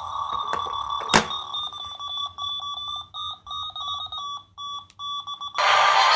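Small sound-making capsule toy giving off electronic alarm-like beeps: a held tone, a sharp click about a second in, then short broken beeps. Loud music starts near the end.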